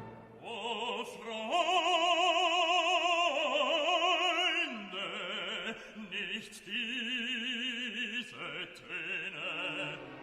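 Operatic classical music: long held notes sung with wide vibrato, moving from note to note.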